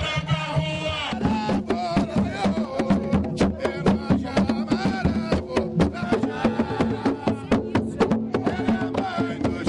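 Hand drums beaten with bare hands in a quick, driving rhythm under group singing, a devotional chant to the sea goddess Iemanjá. The music changes about a second in, after which the drum strikes come thick and sharp.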